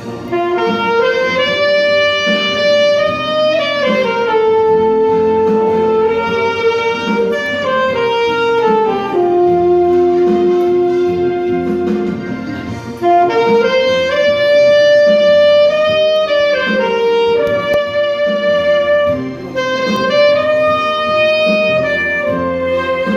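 Saxophone playing a slow, lyrical ballad melody of long held notes with smooth slides between them, over instrumental accompaniment, with a brief break between phrases about halfway through.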